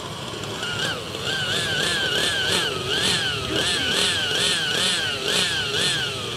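Align T-Rex 600 RC helicopter's nitro engine running on the ground, its pitch surging up and down over and over, about two and a half times a second, from about a second in.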